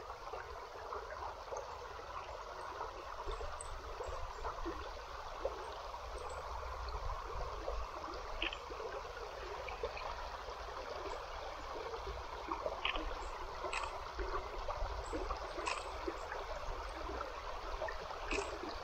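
Small river flowing steadily over shallows, an even babbling water sound, with a few faint short clicks here and there.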